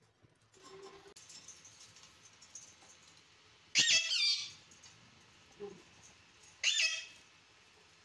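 A parakeet calling twice: two short, loud, shrill screeches about three seconds apart.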